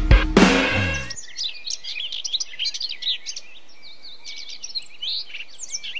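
Music cuts off about a second in, and birds chirping take over. The many short, quick calls overlap and run on continuously.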